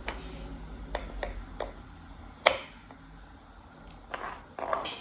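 Wooden toy train track pieces knocking and clicking as they are fitted together and set down on the floor: a scattering of sharp knocks, the loudest about halfway through.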